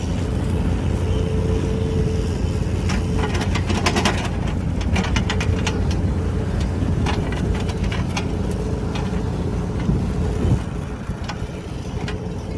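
Backhoe's diesel engine running steadily with a low rumble, with scattered sharp knocks and clicks from the machine working.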